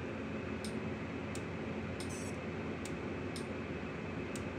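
Steady fan-like hiss with faint, evenly spaced ticks, about three every two seconds.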